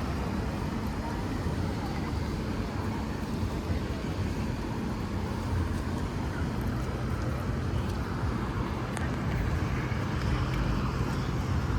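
Steady outdoor city ambience: a continuous low rumble and hiss, with a steady low engine hum growing stronger about five seconds in.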